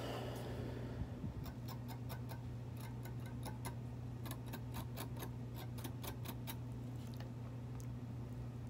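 A run of small, sharp, irregular clicks, starting about a second and a half in and stopping near the end, over a steady low hum.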